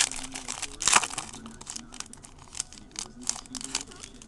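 Wrapper of a baseball card pack being torn open and crinkled by hand, an irregular crackle with a louder crunch about a second in.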